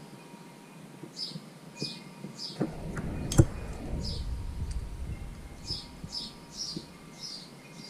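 A small bird chirping in two runs of short, quick, falling chirps. Between the runs comes a low rumble with one sharp click, which is the loudest sound.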